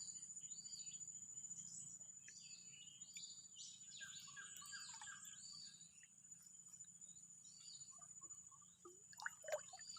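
Faint forest ambience: birds giving short repeated chirps over a steady, high-pitched insect drone, with a couple of brief knocks near the end.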